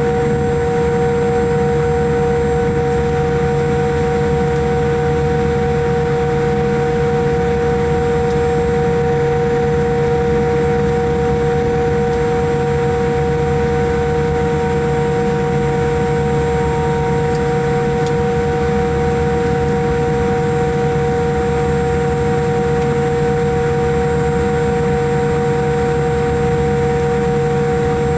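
Cabin noise inside a Boeing 787-8 taxiing at low power: a steady whine of several pitches over a low rumble, unchanging in level.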